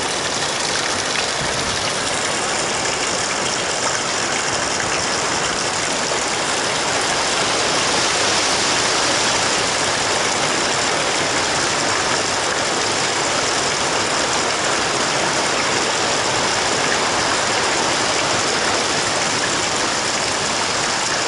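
Steady hiss of heavy hurricane rain, with runoff pouring off a roof edge.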